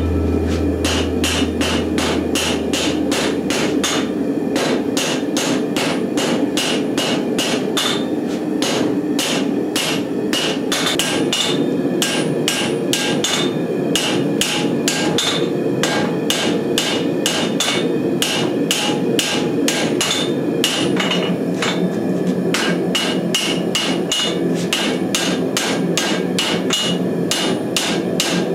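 Hand hammer striking a white-hot steel billet on an anvil, about two to three ringing blows a second, over a steady hum: forge welding the layered billet by hand.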